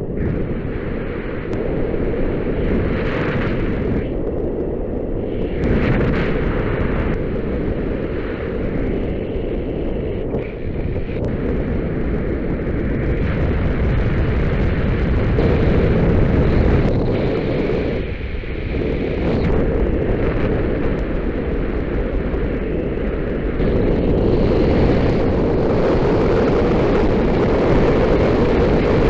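Loud, steady rush of wind buffeting the camera's microphone as it falls through the air from high altitude, surging and easing every few seconds.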